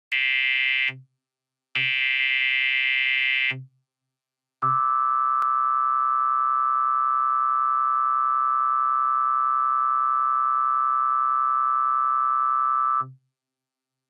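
Emergency Alert System header tones in a pitched-up "helium" version: two short buzzy data bursts, then a long steady attention tone of about eight seconds that cuts off.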